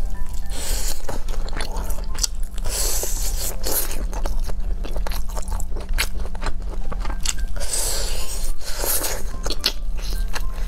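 Close-miked eating of fried meat skewers: biting, crunching and chewing, with many small irregular clicks and smacks.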